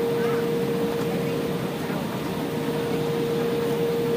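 Cabin noise inside an Embraer E175 regional jet taxiing: a steady, even rumble from its turbofan engines at low power, with one constant mid-pitched whine running through it.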